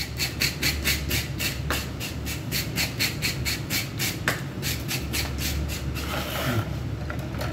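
Plastic fish-scaler brush scraped rapidly back and forth over a whole fish, stripping off its scales: a fast, even rasping rhythm of about five strokes a second.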